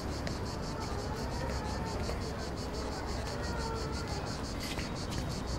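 Insects chirping in a fast, even pulse of about eight strokes a second, over a low steady rumble.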